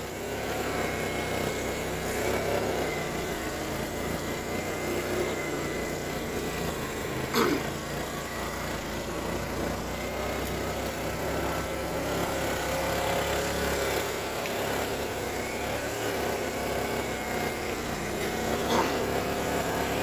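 ATV engine running steadily as it is ridden along a forest trail, with a faint thin whine above it. Two short knocks, one about seven seconds in and one near the end.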